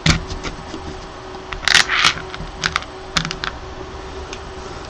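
Small metal screws and hand tools being handled on a tabletop. There is a sharp click at the start, a brief scraping rustle about two seconds in, then a few light clicks.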